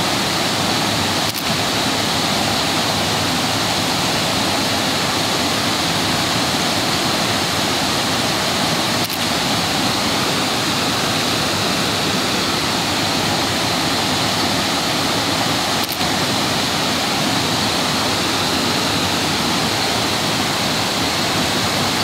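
Creek water rushing steadily over a small waterfall cascade of rock ledges into a pool, broken three times by a brief click.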